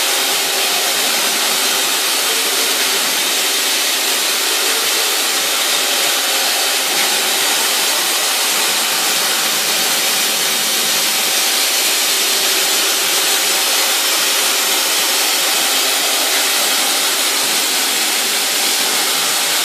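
Mazak VTC-41L vertical machining center running, heard as a loud, steady hiss with a faint hum of tones underneath.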